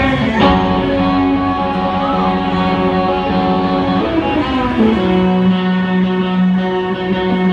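Electric guitars played live through amplifiers, holding long ringing notes that change pitch a few times, with one long low note sustained from about five seconds in.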